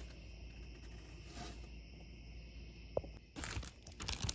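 Plastic zipper freezer bag crinkling as it is handled and opened, starting about three seconds in just after a single click. Before that there is only a faint, steady high-pitched background hum.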